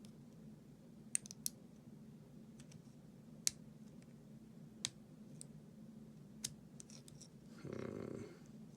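Lock pick working the pins of an American Lock 1100 padlock under light tension: sparse, sharp metallic clicks about a second or more apart, over a steady low hum. Near the end comes a short, louder sound lasting about half a second.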